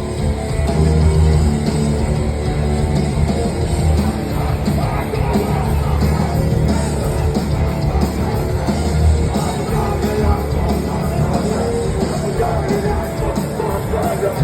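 Hardcore band playing live, with distorted guitars, bass and pounding drums under shouted vocals, heard loud and dense from the audience.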